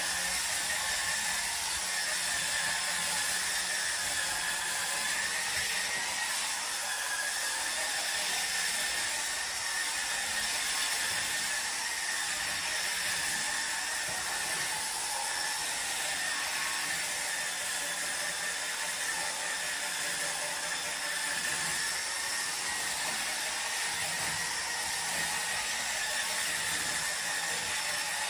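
Hurricane Spin Scrubber, an electric rotary brush, running with its spinning head scrubbing cleaner into wet tile and grout: a steady high motor whine over a scrubbing hiss, the pitch wavering slightly.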